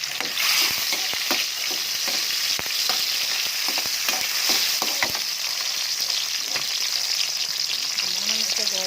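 Garlic, onion and tomato sautéing in hot oil in a wok, sizzling steadily while a utensil stirs and clacks against the pan. The sizzle swells just after the start as the tomato goes in.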